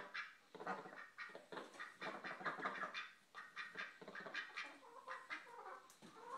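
Domestic ducks quacking softly back and forth, a steady run of short calls about one or two a second.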